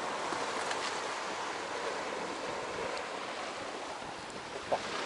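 Sea surf washing steadily against a rocky shore, with a brief knock near the end.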